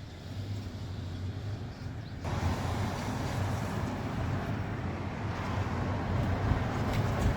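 2014 Mercedes-Benz S500 (W222) on a test drive, heard from inside the car: steady engine and road noise that gets suddenly louder about two seconds in.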